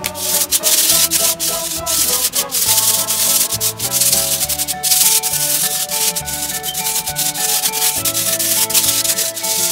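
Hands rubbing and sweeping loose coloured sand across a paper sheet: a close, continuous gritty hiss made of many quick scratchy strokes, starting suddenly. Background music plays underneath.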